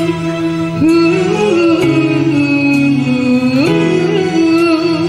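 Live band music: a woman singing long, wavering, bending notes through a microphone and PA over keyboard accompaniment.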